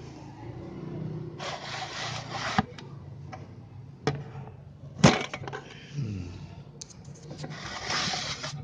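A cotton cloth rustling in two spells and a few sharp clicks and knocks of metal cookware as the lid of a black cooking pot in a box solar cooker is opened; the loudest click comes about five seconds in.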